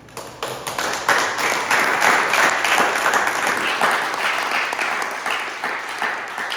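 A room of people applauding, starting abruptly, building within about a second, then slowly dying away.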